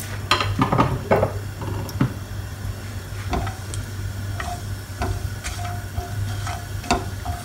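Whole spices (cloves, star anise, cinnamon) sizzling in hot oil in a non-stick wok, with a slotted spatula tapping and scraping the pan as they are stirred. A steady low hum runs underneath.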